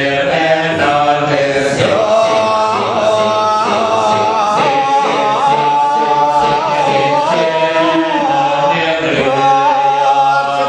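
Kecak chant: a chorus of men's voices singing and chanting together, with a held melody that slides up and down in pitch over a steady low vocal drone.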